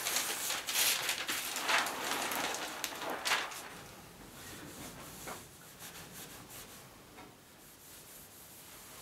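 A paper protective sheet rustling and crinkling as it is lifted off a table saw's cast iron top. About three and a half seconds in, it gives way to the quieter sound of a cloth rag rubbing over the oily cast iron as it is wiped down.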